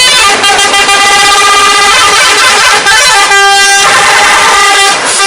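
Bus 'telolet' horn, a multi-tone air horn, playing a loud tune: several notes sound together and shift to new pitches a few times.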